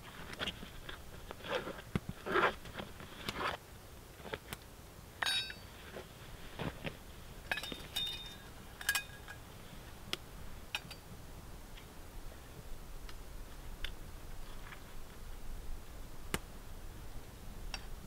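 Camp cooking gear being handled: a packet rustling in the first few seconds, then a few ringing clinks of a cup or pot around the middle, followed by scattered light clicks.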